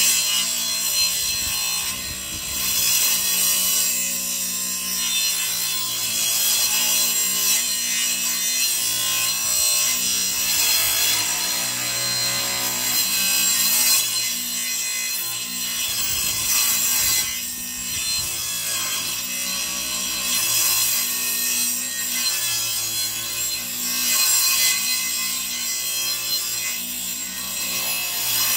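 Table saw ripping lengthwise through a 15-inch Camoplast Cobra 1.62 snowmobile track clamped between wooden boards, cutting it down to 14 inches wide. The blade cuts steadily through rubber and wood, with brief dips in load.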